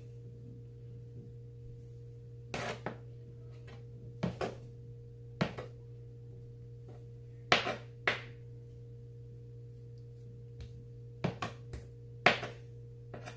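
Kitchen knife cutting blocks of Velveeta cheese into cubes and knocking down onto a plastic cutting board: short sharp knocks at irregular intervals, some in quick pairs, over a steady low hum.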